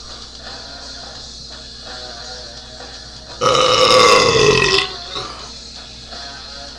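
A man's loud belch about halfway through, lasting about a second and a half and sagging slightly in pitch, over rock music with guitar.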